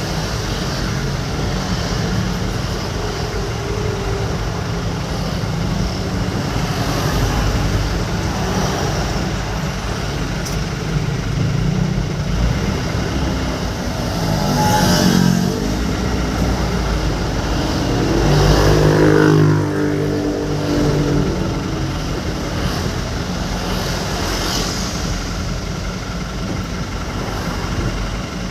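Steady engine rumble and road noise from a vehicle driving through traffic. Twice near the middle a louder passing-vehicle sound swells up with a sliding pitch, then fades.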